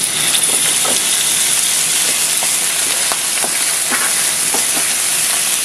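Raw meat pieces frying in hot oil with chopped shallots and garlic in a nonstick pan: a steady high sizzle, with scattered small ticks as a spatula stirs them.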